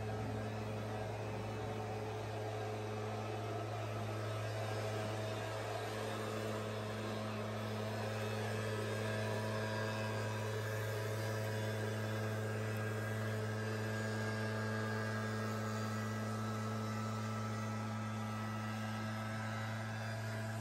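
Steady low hum, unchanging throughout, with fainter steady higher tones above it.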